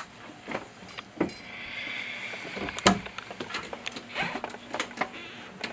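Scattered knocks and bumps of things being handled behind a bar counter, with a short scrape about a second and a half in and a sharper knock about three seconds in.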